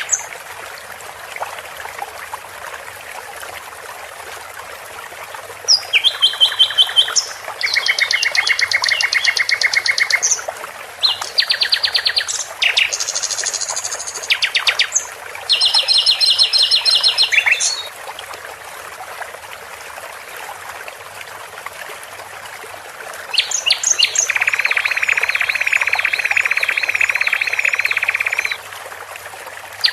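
Recorded songbird song played as a masteran training track: bursts of rapid trills and quick repeated high notes, with a long trill near the end, over a steady hiss.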